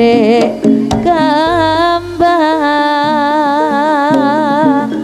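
Amplified Javanese jaranan music: a long held melodic line with a wide, wavering vibrato, most likely a singer's drawn-out note, over percussion with a few sharp strikes and low drum beats.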